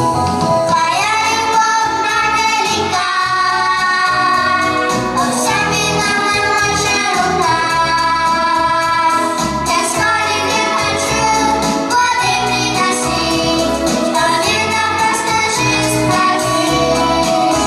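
Children and a woman singing a song together with instrumental accompaniment and a steady bass line.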